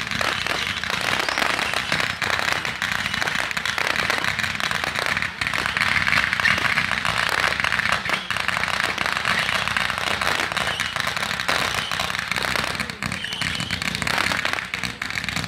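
Consumer fireworks going off from the ground: a continuous, dense crackling of many rapid small pops, with no break.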